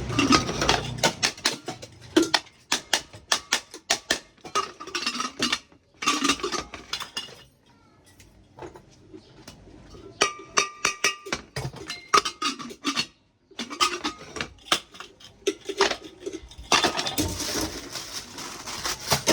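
Small hard objects clinking and clattering as they are handled, in quick irregular knocks with short pauses. About ten seconds in there is a brief ringing tone.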